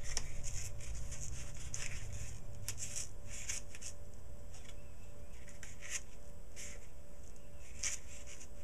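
Cardstock and paper being handled and slid across a scrapbook page on a cutting mat: a run of short, irregular scratchy rustles, busiest in the first few seconds, over a steady low hum.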